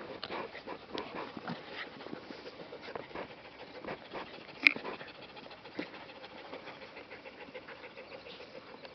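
Parson Russell terrier puppies play-fighting: light dog vocal sounds and panting, with small scattered scuffles. A single sudden sharp sound about halfway through is the loudest moment.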